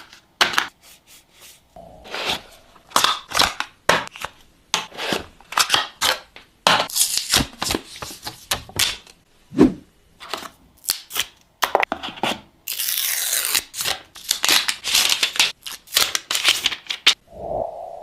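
A smartphone retail box being unboxed: packaging is rustled, scraped and torn in quick irregular handling noises. About 13 seconds in comes one longer, steadier tear of about a second, like plastic wrap or a seal strip being pulled off.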